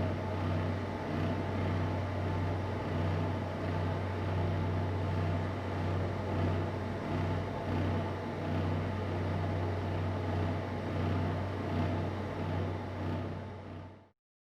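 Empty-room tone: a steady low hum with a light hiss over it, fading out quickly near the end.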